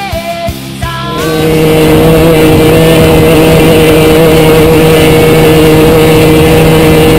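KTM 250 dirt bike engine running hard at steady high revs, its pitch held level, under heavy wind noise on the handlebar-mounted camera. A music track ends about a second in, where the engine takes over.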